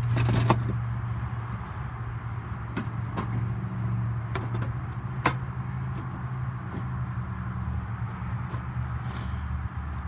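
Atwood water heater being test-fitted into a cutout in a shuttle bus's side wall: scattered knocks, clicks and a scrape of its housing and frame against the wall, the loudest knocks about half a second and about five seconds in. A steady low hum runs underneath.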